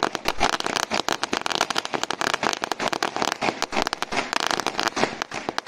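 A string of firecrackers going off on the ground, a rapid, dense run of sharp bangs and crackles.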